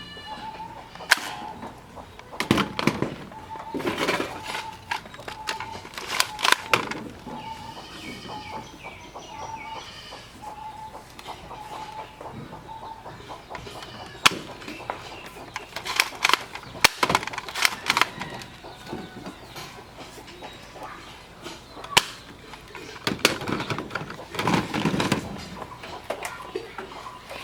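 Chickens clucking, with a few sharp clicks and several rougher bursts of noise. A short note repeats about every half second through the first half.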